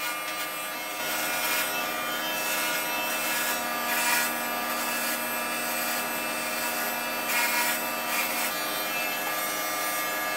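Electric hair clippers fitted with a 3 mm guard buzzing steadily while being run over a man's scalp, with rasping swells each time the blades cut through the hair, loudest about 4 seconds in and again near 8 seconds.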